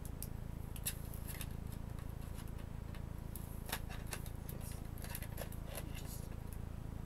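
Scattered small clicks and taps of plastic and metal parts being handled while an Asus C300S Chromebook is taken apart, over a steady low hum.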